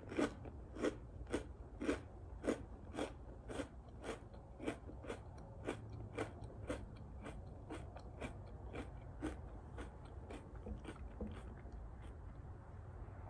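A person chewing a mouthful of Eggo chocolate waffle cereal that is still super crunchy after sitting in milk: a steady crunch about twice a second, growing fainter and dying away near the end.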